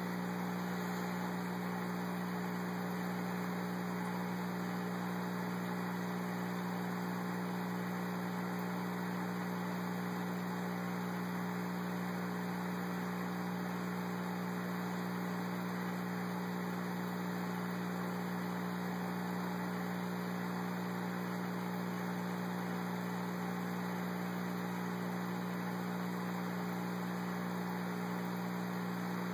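Aquarium pump running: a steady low hum under a constant hiss.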